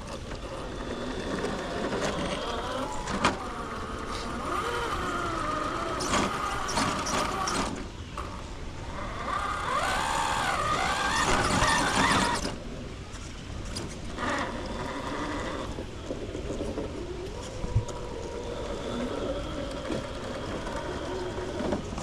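Electric motor and gear whine of a radio-controlled rock crawler, rising and falling in pitch as the throttle changes, with a couple of sharp knocks.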